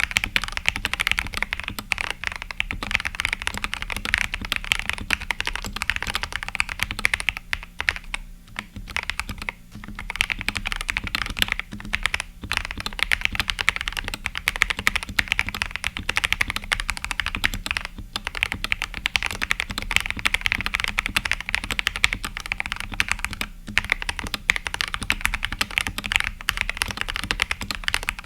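Typing on a modded Akko 3068B mechanical keyboard with Akko Jelly Pink switches: continuous quick keystrokes, with a few brief pauses.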